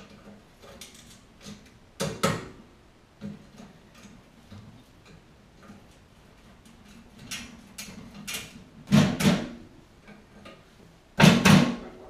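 Metal clanks and knocks from a concrete mixer wheel being worked off its axle: one sharp knock about two seconds in, then two louder doubled clanks later and near the end, with light taps between.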